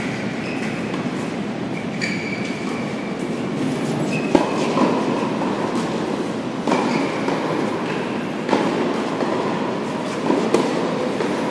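Tennis rally on an indoor hard court: racket strikes on the ball about every two seconds from about four seconds in, with short shoe squeaks early on, over a steady hum of the hall.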